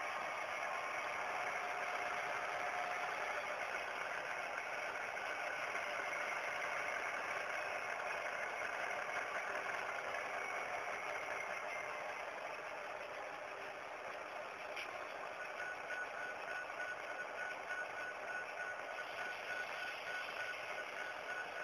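Sound-equipped model diesel locomotive standing still, its speaker playing a steady idling engine sound. A faint click comes about two-thirds of the way through, and a thin steady whine joins just after.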